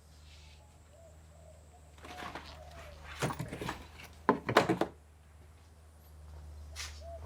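Tools and gear knocked and shifted about while rummaging for a mallet. A rustle comes about two seconds in, then a run of knocks and a sharp clatter around the middle, and quieter knocks near the end.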